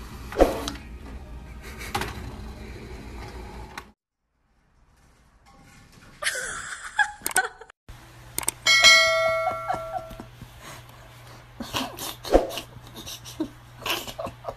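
An inkjet printer running as it feeds paper out, with a steady hum and small clicks. After a short break, a ringing electronic chime of several tones sounds for about a second and a half, the loudest thing heard.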